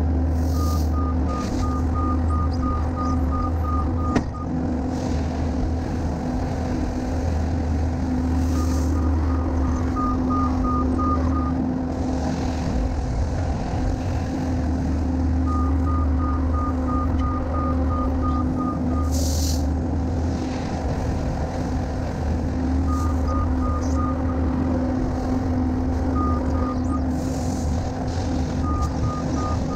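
Diesel engine of a construction machine running steadily while its backup alarm beeps in runs of about three beeps a second, stopping and starting several times. A few short hisses come through over the engine.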